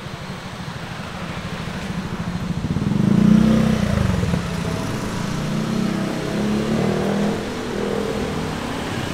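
Motor scooters and a car running past close by in a narrow lane, loudest about three seconds in as a scooter goes by, with more scooter engines running after it.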